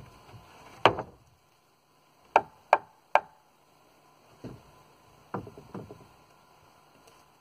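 Hammer blows on 2x6 lumber, driving tag staples flush into the board ends. There is a single sharp blow about a second in and three quick blows around two and a half to three seconds in, then a few softer knocks.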